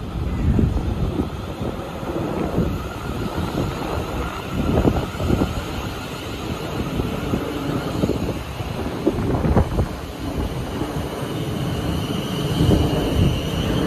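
Electric train approaching a station platform: a low rumble, with a faint high whine that grows near the end. Wind buffets the microphone throughout.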